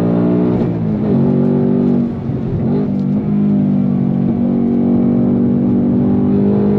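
Ford Mustang Dark Horse's 5.0-litre V8 running hard under load through the manual gearbox. Its pitch drops about a second in and dips again around two and a half seconds, then holds fairly steady.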